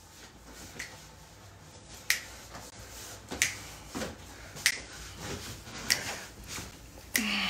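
A person snapping their fingers in a slow, steady beat, about one sharp snap every second and a quarter, with softer thuds in between.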